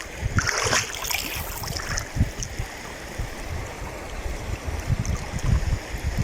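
Water sloshing and splashing around a person floating in the very salty water of the Dead Sea, with a brief splash about half a second in. Low buffeting thumps run underneath.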